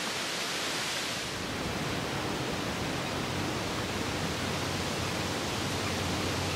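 Steady rush of strong wind through the forest trees.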